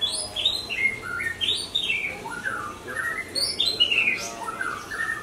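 A songbird singing: a quick, varied run of clear whistled notes, each sliding downward, repeated in phrases.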